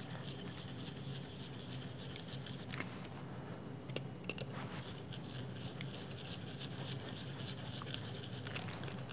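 Faint, irregular ticks and scratches of a small pointed hand tool picking at a thin aluminum shim, over a steady low hum.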